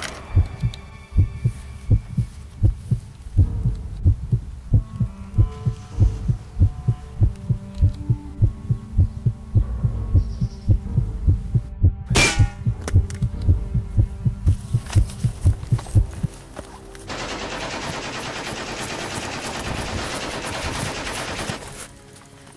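Film soundtrack: a pulsing low heartbeat-like beat, two to three thumps a second, under sustained tones, with a sweeping whoosh about twelve seconds in. From about seventeen seconds, about five seconds of dense rapid fire, a machine-gun sound effect, which cuts off sharply near the end.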